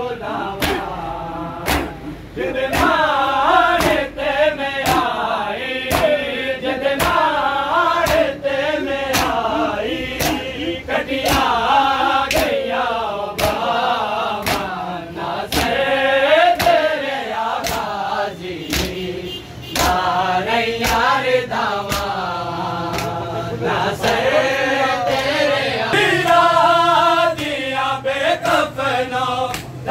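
Group of men chanting a noha (Shia mourning lament) in unison, over sharp rhythmic chest-beating slaps (matam) about one and a half a second.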